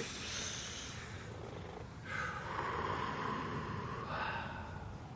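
A person breathing out heavily: a soft breath at the start, then a long breathy exhale beginning about two seconds in and fading after a couple of seconds.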